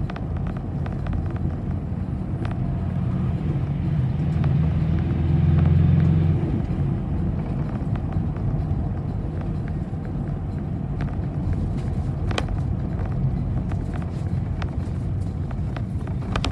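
City bus engine and road noise heard from inside the passenger cabin while the bus drives along. It is a steady low rumble that grows louder for about two seconds near the middle, with a few sharp clicks or rattles, one standing out about twelve seconds in.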